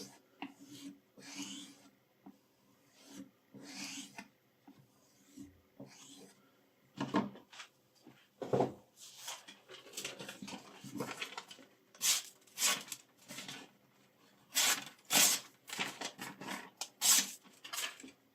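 A series of short scraping strokes of a knife blade, each a second or less with pauses between. They grow sharper and hissier over the last few seconds.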